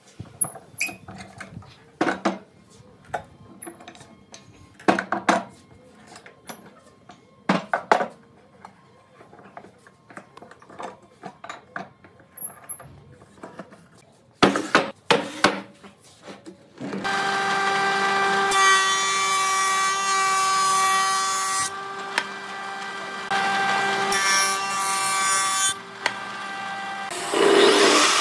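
Scattered clicks and knocks of red pipe clamps being tightened on a pine board glue-up, then a quick run of loud knocks. After that a woodworking power tool runs steadily with a whine, easing off briefly twice.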